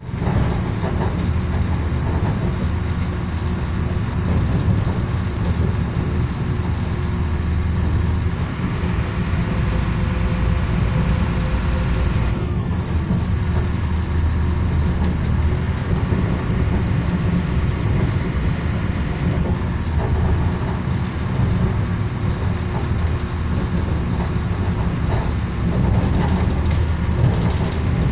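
Steady rumble of a moving passenger train, heard from inside the carriage: the wheels running on the track and the car body rattling, heaviest in the deep bass.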